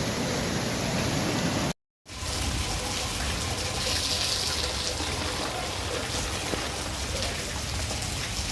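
Steady rushing of floodwater with heavy rain, broken by a brief dead-silent gap just before two seconds in.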